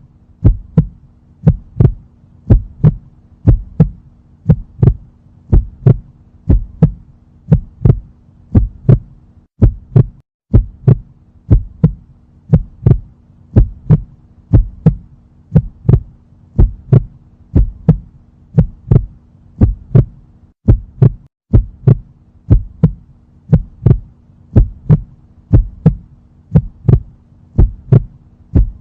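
Heartbeat: regular heart sounds, about two strokes a second in lub-dub fashion, over a steady low hum. The hum cuts out briefly twice.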